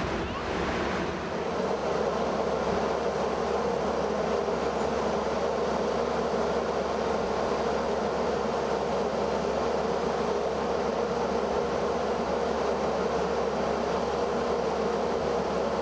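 Ex-JNR KiHa 30-series diesel railcar standing still with its engine idling: a steady mechanical hum and whine under a constant rush of noise.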